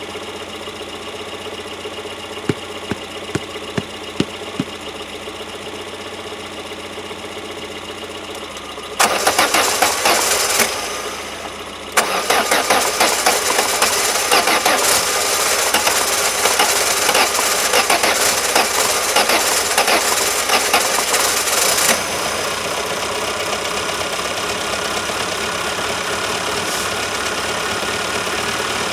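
Peugeot 205's 1.4-litre single-point-injection engine being jump-started from cold after standing for months in deep frost. A first burst of cranking about nine seconds in stops after about two seconds. Cranking starts again about three seconds later and becomes rough, uneven running, which settles to a steadier, quieter run about ten seconds after that, under a steadily idling donor engine.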